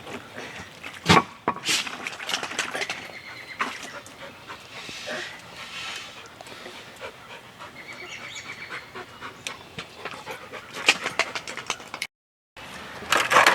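A dog panting close by, with a couple of sharp knocks about a second in.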